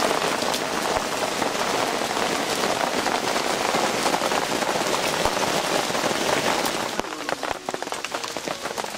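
Heavy rain pouring down and splashing into puddles. It eases a little about seven seconds in, leaving more separate drops.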